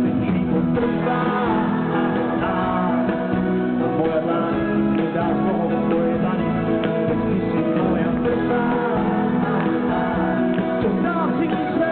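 Pop-rock band playing live on amplified stage sound: electric guitars, keyboards, bass and drums, with the lead singer singing over them. It is heard from within the audience, dull and cut off in the highs.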